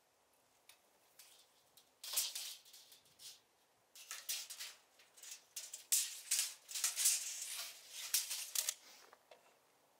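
Steel tape measure rattling and clicking as its blade is pulled out and handled, in irregular bursts starting about two seconds in.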